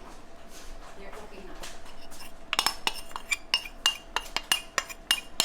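A metal spoon working in a saucepan, clinking against the pan at about four sharp, ringing clinks a second from about halfway in, as tapioca starch is added and stirred into thick brown-sugar syrup. Before the clinking, soft scraping and rustling.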